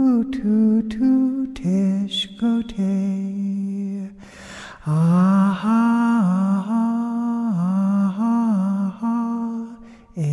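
A singing voice carrying a slow melody in long held notes, like a lullaby, with a run of light quick clicks in the first couple of seconds. The singing breaks off for a moment about four seconds in, then comes back louder.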